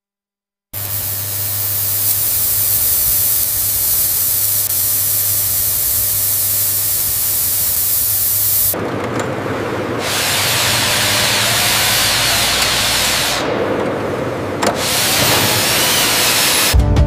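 Loud, steady hiss of noise with a low hum beneath it, starting suddenly out of silence. About nine seconds in it turns grittier and coarser, drops out briefly twice, and music comes in near the end.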